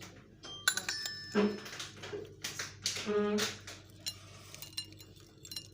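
Light clinks and knocks of a serving spoon and crockery as a crisp topping is scattered over a platter of noodles, in a run of short irregular taps.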